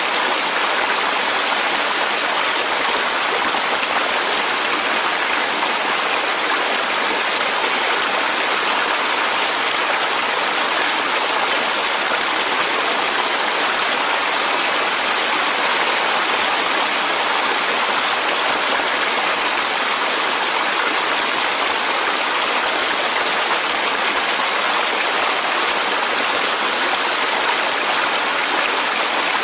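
Clear mountain valley stream flowing and splashing over rocks, a steady, even rush of water.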